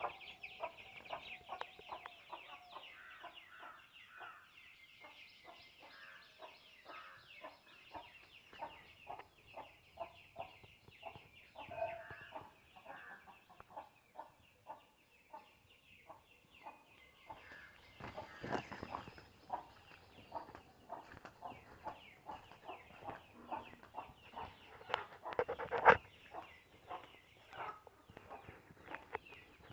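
Domestic chickens clucking again and again in short calls, over a steady high chirping background, with a single sharp knock about two-thirds of the way through.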